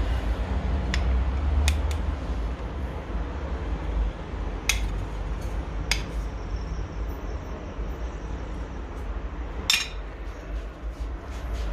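Metal utensils clinking against dishes: about five sharp, separate clinks, the loudest about ten seconds in, over a steady low rumble.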